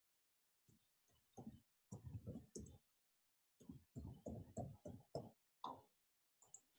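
Faint, quick clicking of computer keyboard keys being typed, in two short runs, with a couple of single clicks near the end.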